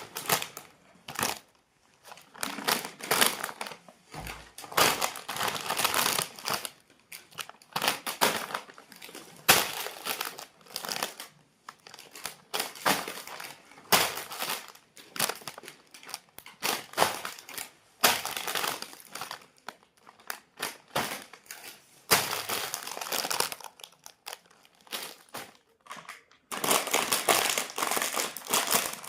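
Snack packets crinkling and rustling as they are handled, in irregular bursts, with a longer stretch of continuous crinkling near the end.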